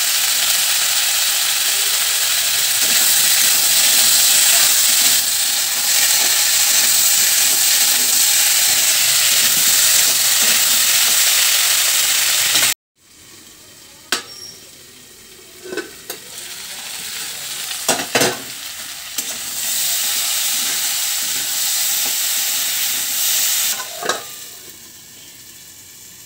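Diced potatoes and peas sizzling in hot mustard oil in an aluminium kadai while a flat spatula stirs and scrapes them. About halfway through it drops suddenly to a much quieter, muffled sizzle of the food cooking under a metal lid, with a few light knocks.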